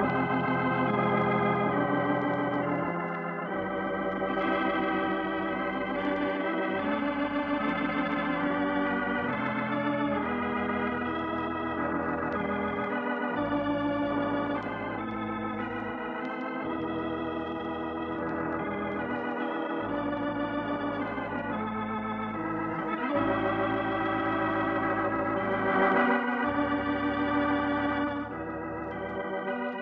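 Organ playing sustained chords as closing music, the harmony changing every three seconds or so over held bass notes that break off briefly between chords.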